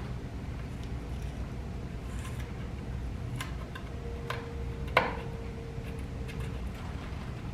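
Small clicks and taps of handling as broken plastic trim pieces are taped together, with one sharper click about five seconds in, over a steady low hum.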